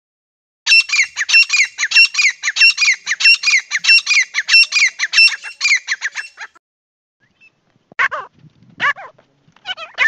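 Grey francolin calling: a fast run of evenly repeated high notes, about three a second, for about six seconds. After a short pause a few separate short calls follow near the end.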